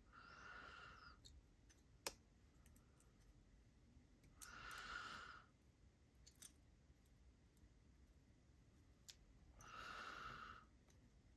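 Near silence, with three soft breaths about five seconds apart and a few small, sharp clicks of small knife parts being handled.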